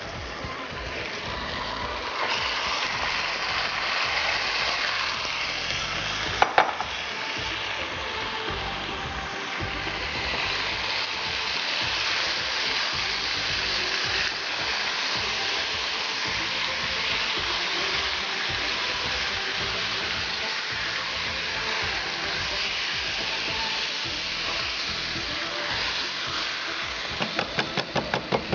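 Marinated chicken pieces sizzling in hot oil in a wok, turned with a silicone spatula. A sharp knock comes about six seconds in, and a quick run of clicks near the end.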